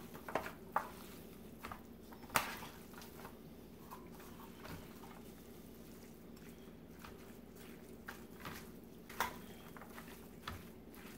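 Pulled pork being tossed by hand and with a fork in a stainless steel pan: faint soft squishing of the wet meat, with a few sharp clinks of the fork against the pan, the loudest about two seconds in.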